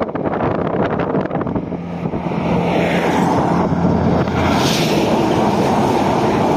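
A road train, a truck hauling several trailers, approaching and passing close by at highway speed. The engine hum and tyre noise build from about two seconds in and are loudest as the trailers rush past, with wind buffeting the microphone.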